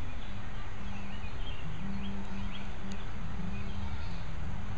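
Outdoor ambience: a steady low background noise with a low hum that comes and goes, and a few faint, short bird chirps scattered through it.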